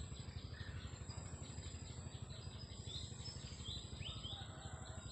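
Faint birdsong: a pulsing high call repeating about four times a second, with a few short falling chirps about three to four seconds in.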